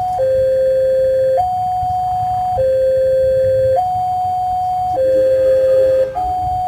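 Two-tone electronic warning alarm, a lower and a higher tone taking turns about every second and a bit, over steady low background noise.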